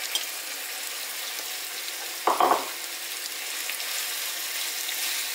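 Onion and grated carrot sizzling steadily as they fry in oil in a non-stick frying pan, stirred with a spatula, with a brief louder clatter about two seconds in.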